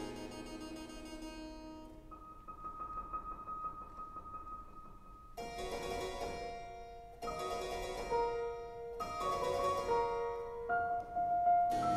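Music for harpsichord and piano: plucked harpsichord chords over piano, a quieter held note early on, then new chords struck about every two seconds.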